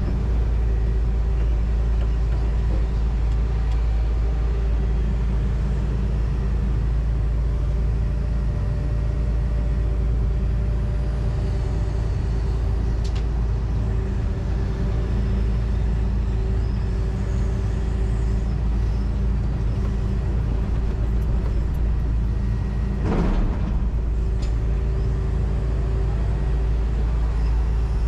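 John Deere 245G excavator's diesel engine and hydraulics heard from inside the cab, running steadily. There is a single brief sharp knock late on.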